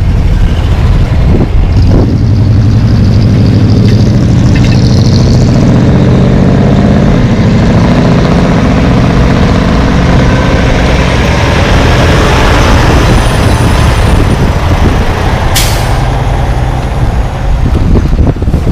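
Heavy-haul semi truck's diesel engine pulling a loaded lowboy trailer close by, a steady deep drone throughout. Late on comes one short, sharp hiss of air from the brakes.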